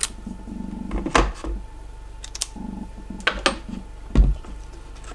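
Steel impact sockets and a socket adapter clicking and knocking against each other and against a hard plastic storage case as they are handled, with a heavier knock about four seconds in. In between comes a low whir twice, from the camera lens's autofocus motor hunting.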